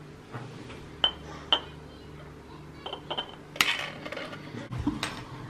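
Glass drinking jars with screw-on lids clinking and knocking as they are handled: about half a dozen sharp clinks with short ringing, the loudest about three and a half seconds in.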